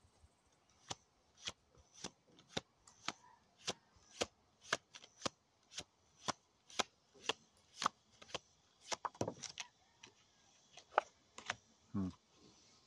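A tarot deck being shuffled by hand, overhand style, with sharp card taps about twice a second and a quicker flurry of taps about nine seconds in.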